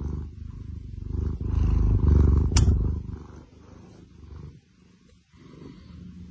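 Domestic cat purring close to the microphone, loudest around two seconds in and dying away after about three seconds. A single sharp click comes about two and a half seconds in.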